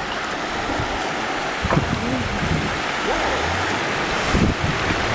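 Steady rush of flowing river water, with faint voices briefly calling out a couple of times.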